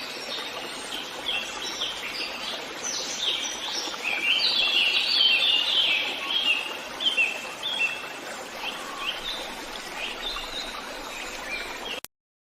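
Forest birds singing, with many short chirps and trills over a soft steady hiss of background. The birdsong is busiest and loudest about midway, and everything cuts off suddenly near the end.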